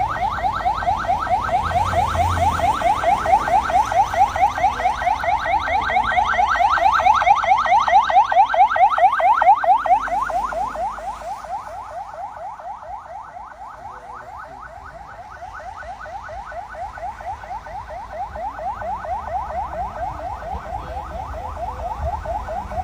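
Emergency vehicle siren in a fast yelp, rapid rising sweeps several times a second. It grows louder until about ten seconds in, fades away, then swells again near the end as vehicles pass.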